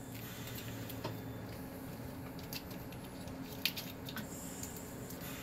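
Steady low hum of operating-room equipment, with a few faint clicks and rustles from gloved hands handling a syringe and drapes.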